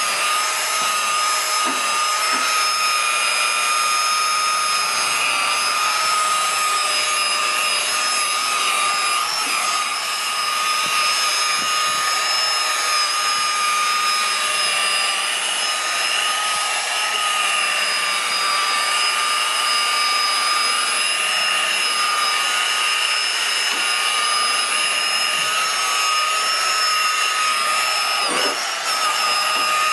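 Electric buffer or polisher running steadily on a boat's gel-coat, a constant high motor whine with no change in speed.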